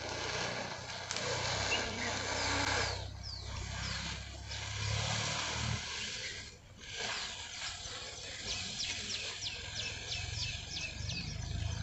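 Red-hot iron hissing and sizzling as it is pressed into a bull's cancerous horn to cauterise it, strongest over the first several seconds. Later, small birds chirp in quick repeated calls.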